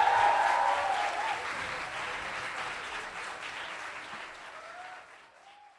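Applause from a small audience, loudest at first and fading out steadily over about five seconds.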